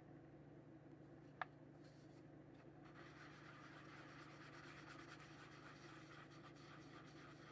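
Faint rasping rub of a plastic case piece being sanded, starting about three seconds in, over a low steady hum. A single sharp click comes about a second and a half in.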